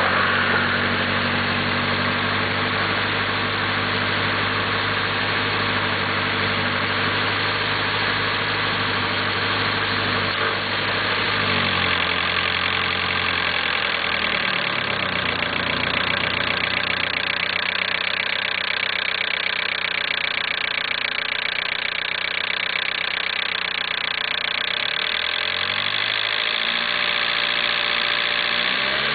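Nissan SR20DET turbocharged four-cylinder engine running with a rattle. It idles steadily, and its revs rise and fall back twice, once about a third of the way in and again near the end.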